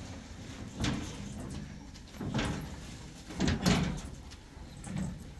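Wooden glass-fronted cabinet being pushed into place, scraping and knocking on the floor in four short shoves, the loudest about three and a half seconds in.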